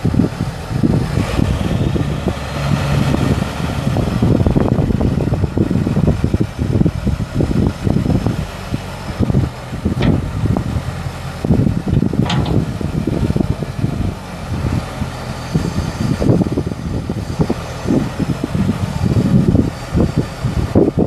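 International 5088 tractor's six-cylinder diesel engine running while its front loader is raised, heard under a gusty rumble of wind buffeting the microphone. A couple of short clicks come about halfway through.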